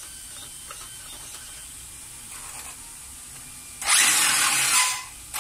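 RC buggy's motor and gear drivetrain whirring loudly in one burst of about a second, starting about four seconds in, as the throttle is worked from the transmitter with the rear wheels held off the floor so they spin freely.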